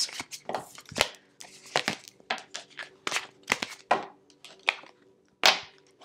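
Tarot cards being slid and picked up off a tabletop: an irregular run of soft papery slaps, clicks and scrapes, with one louder slap about five and a half seconds in.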